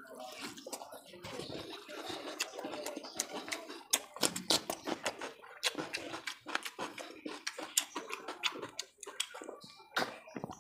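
Close-up mouth sounds of a man eating curry-soaked rice by hand: wet chewing and lip-smacking, with many quick sharp clicks.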